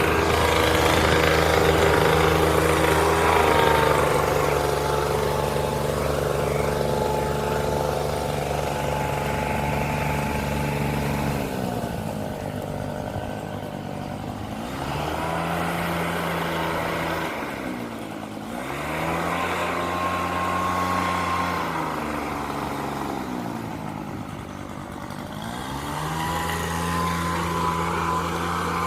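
Leaf blower engine running at full throttle. Past the midpoint it eases off and revs back up three times, each time sinking in pitch and climbing again.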